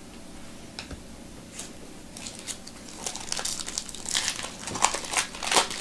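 The foil wrapper of a Bowman Chrome baseball card pack being torn open by hand and crinkled. A few faint clicks at first, then dense crackling that grows louder toward the end.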